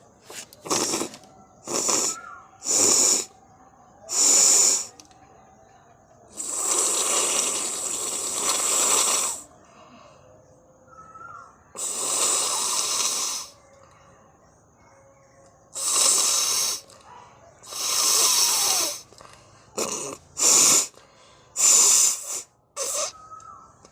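A person blowing their nose hard, over and over: a string of short, sharp blows and a few longer ones, the longest lasting nearly three seconds.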